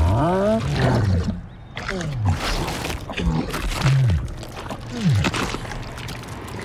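Film sound design of King Kong snarling: several deep growls, each swooping up and down in pitch, over crashing and splashing.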